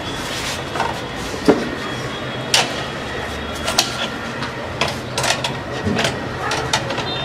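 Irregular metallic clicks and knocks of hand tools being handled while copper pipe is set up for flaring in a flaring block, over a steady low background hum.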